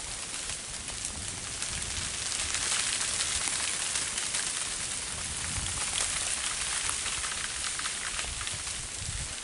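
Freezing rain falling steadily through bare, ice-coated trees: a dense patter of many fine ticks from drops striking twigs and branches.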